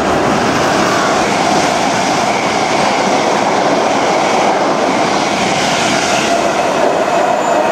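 Electric-hauled express passenger train of Mark 3 coaches running through a station at speed, a steady loud rush of wheels on rail and passing coaches.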